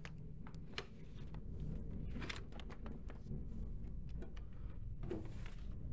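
Paper mail being handled: envelopes shuffled and rustled, with scattered small clicks and knocks over a low steady rumble.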